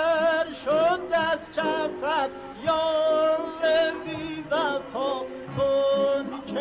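Music: a Persian classical song, a male voice singing held notes and quick wavering ornaments over instrumental accompaniment.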